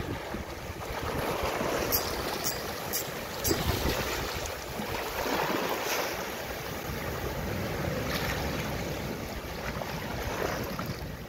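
Sea surf washing over shore rocks, with wind rumbling on the microphone. About two seconds in there are four light, sharp ticks about half a second apart.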